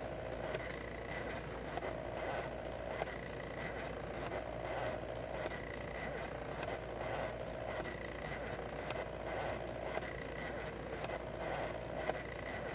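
Stepper motors of a 2000 mW laser engraver whining in short, repeated moves as the laser head traces the engraving, the pitch changing from move to move, with a few faint ticks.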